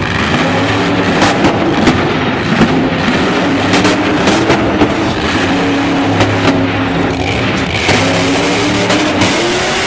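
Monster truck's supercharged V8 running loud, its revs rising and falling as the school-bus-bodied truck drives across the dirt arena floor.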